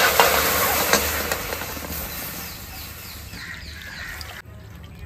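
Milk being poured into a kadhai (wok): a steady splashing pour that slowly tapers and stops suddenly about four seconds in.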